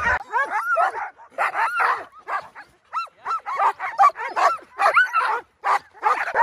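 Alaskan husky sled dogs yipping and barking, a quick run of high yelps that rise and fall in pitch, several a second, with short pauses between.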